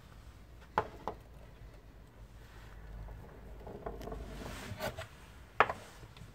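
A few sharp knocks: two close together about a second in and a louder one near the end, with soft rubbing and rustling in between.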